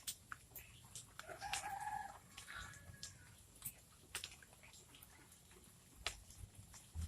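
A single drawn-out bird call begins about a second in and lasts under two seconds, heard faintly. Scattered faint clicks and ticks sound around it.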